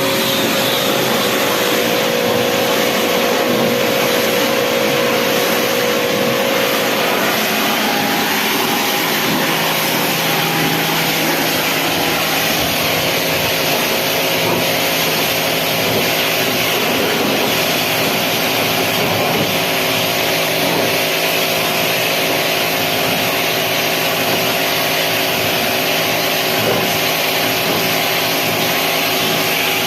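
Electric pressure washer running steadily with a loud hiss of water spray, its motor tones shifting slightly about eight seconds in.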